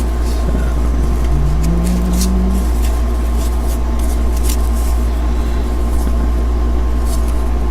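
Steady low electrical hum under scattered crinkles and rustles of a Topps wax-paper card pack being unwrapped and its baseball cards handled.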